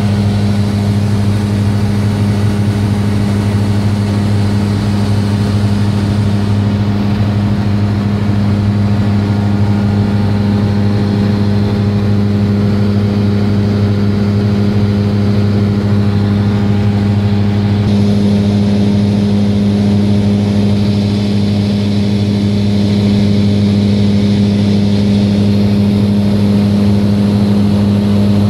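Cessna 172R's diesel engine and propeller running steadily in flight, a constant low drone heard inside the cockpit.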